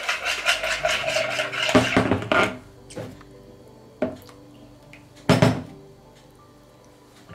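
Kitchen utensils clattering rapidly against a bowl for about two and a half seconds, then two sharp knocks.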